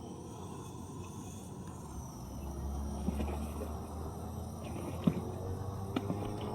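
Wind buffeting the microphone as a steady low rumble, with a few light clicks about three, five and six seconds in.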